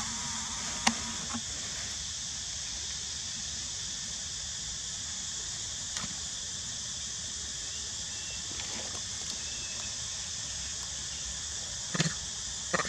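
Steady high-pitched insect drone. A sharp click comes about a second in, and a couple of short soft knocks or rustles come near the end.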